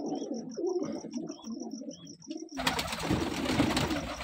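Pigeons cooing, a low pulsing murmur; about two and a half seconds in, a loud rustling noise takes over, the bird being handled close to the microphone, with the cooing still under it.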